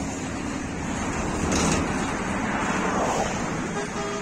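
Steady outdoor rushing noise of wind on the microphone and road traffic, swelling a little about halfway through.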